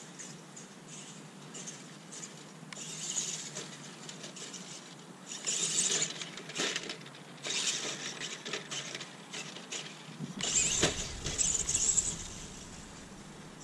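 Tamiya Super Clod Buster RC monster truck's electric motors and gears whining in bursts as it is throttled across grass. It is loudest about six seconds in and again around eleven seconds, where a low rumble joins.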